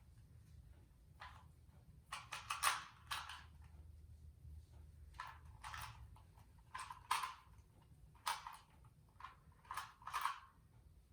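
Plastic 2x2 Rubik's cube being turned quickly by hand in a timed solve. The face turns click and clack in short irregular bursts, a few at a time, with brief pauses between.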